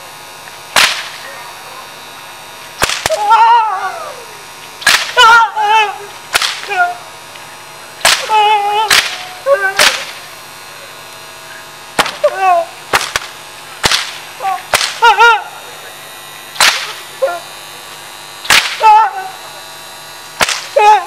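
A stage whip cracking again and again, more than a dozen sharp lashes about one to two seconds apart, some in quick pairs. After many of the lashes a man cries out in pain, his voice wavering.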